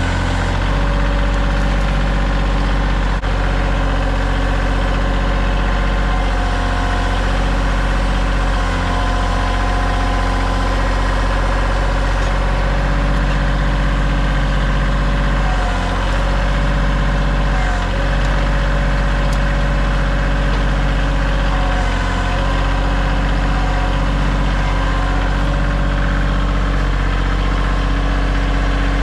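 Kioti tractor's diesel engine running steadily, with a few brief dips in its note around the middle.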